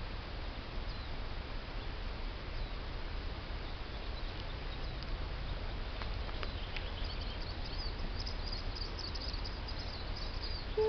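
Young chicks peeping: scattered high cheeps that come thicker and faster in the last few seconds, over a steady low rumble.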